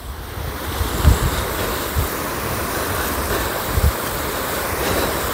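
Steady hiss of wind and rain, with a few low thumps where gusts buffet the microphone.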